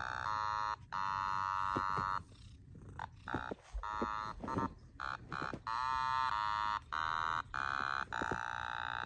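Otamatone played in its low range: a weird-sounding electronic tone held as a series of notes broken by short gaps, with a few notes sliding in pitch about halfway through.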